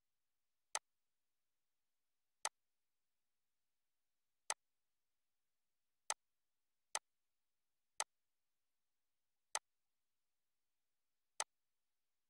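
Eight sharp, single computer mouse clicks at uneven intervals, with near-total silence between them.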